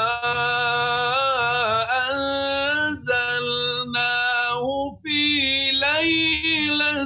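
A man's voice reciting the Qur'an in melodic tajwid style, holding long notes that bend and waver in pitch, with short breaks for breath about three and five seconds in.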